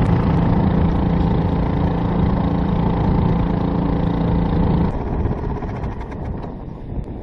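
Honda 2 hp four-stroke outboard motor running steadily at a constant speed, pushing a small kayak. About five seconds in, the steady engine note stops and a rougher, lower rumble carries on.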